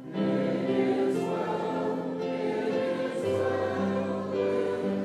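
Church congregation singing a hymn together, in slow held notes, with a lower note joining about three seconds in.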